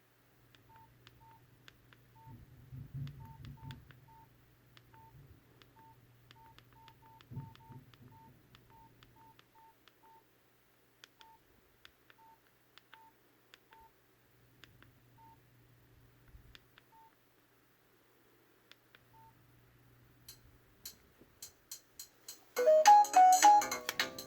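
Nokia 5300 XpressMusic keypad tones: short single beeps at one pitch, with faint button clicks, sounding at irregular intervals as keys are pressed through the menus. About two seconds before the end, a loud melodic ringtone starts playing from the phone's speaker.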